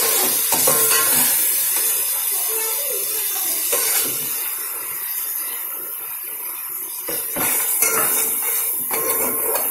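Metal stirring utensil scraping and clinking against the side of a steel cooking pot as a frying onion-tomato masala is stirred, with the steady hiss of the oil sizzling underneath.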